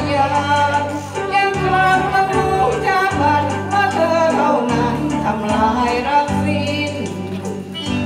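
A woman singing a Thai ballad into a microphone over a karaoke backing track played through speakers. Near the end the microphone is lowered and the backing music carries on alone.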